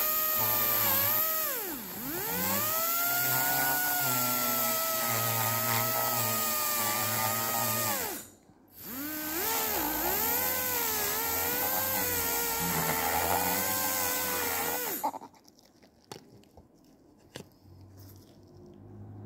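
Dental drill (handpiece) whining with a high hiss, its pitch sagging briefly about two seconds in. It cuts out for a moment about eight seconds in, starts again, and stops about fifteen seconds in, followed by a few faint clicks.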